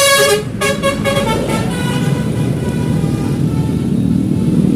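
Basuri telolet multi-tone bus horn playing a quick run of short notes at changing pitches, the last one held and fading, over a bus engine rumble that grows louder toward the end.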